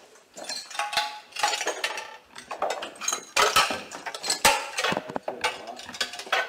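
Irregular clatter of sharp knocks and clinks from hard objects being knocked about.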